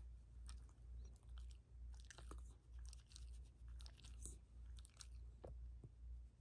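Faint rustling and small soft clicks as a hand strokes a Shiba Inu's head fur, over a low hum that pulses about twice a second.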